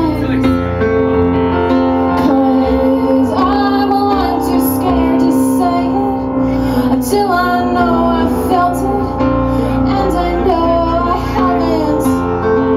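Live piano-rock band: a woman singing over her keyboard, with bass and drums, cymbal strokes cutting through every second or two.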